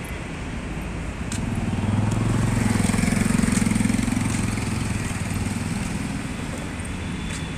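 A motor vehicle's engine passing close by: a steady hum that swells about a second and a half in, is loudest for a couple of seconds, then fades away, over a constant background of traffic noise.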